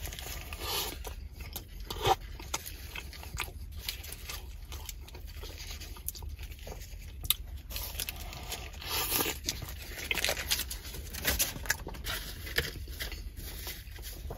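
Close-up eating sounds: biting and chewing a soft, gravy-soaked shaved-beef sandwich with cheese curds and curly fries, with irregular wet clicks and smacks and the paper wrapper rustling, busier in the second half.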